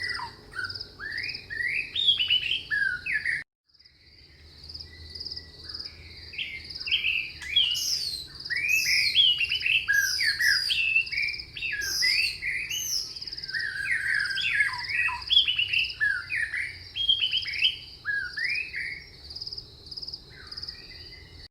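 Many birds chirping and whistling in quick rising calls over a steady, high, fast-pulsing trill. The sound cuts out for a moment about three and a half seconds in and fades back in.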